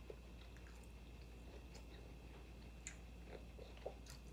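Faint chewing of a mouthful of taco, with soft wet clicks scattered through and a couple of slightly louder ones near the end.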